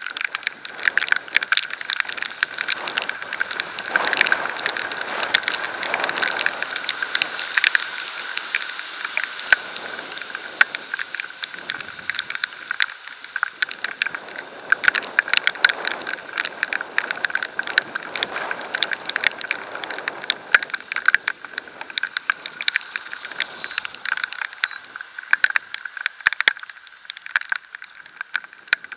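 Raindrops striking the camera at riding speed, a dense, uneven patter of sharp ticks over a steady hiss of wind and wet road.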